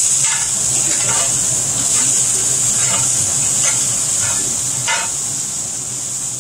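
Fried rice sizzling in a hot pan with a steady hiss, while a spatula scrapes and stirs through it in short, irregular strokes.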